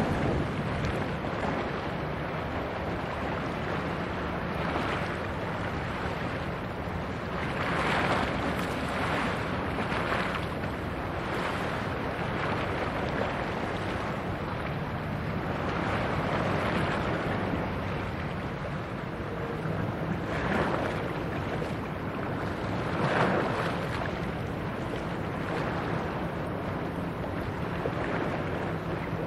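Coastal cargo ship passing, its diesel engine a steady low drone under the wash of water. Wind gusts buffet the microphone several times.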